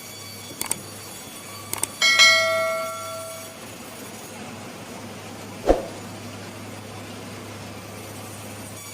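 Sharp knocks and one loud metallic clang about two seconds in that rings on for over a second before dying away, over a steady low machine hum in a timber-processing workshop.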